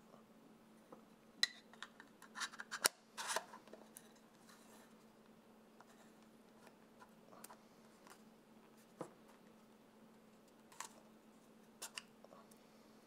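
Small clicks and scrapes of a metal-ringed magnetic variable ND filter and its magnetic caps being handled and fitted together. There is a quick run of clicks a second and a half to three and a half seconds in, then a few single clicks.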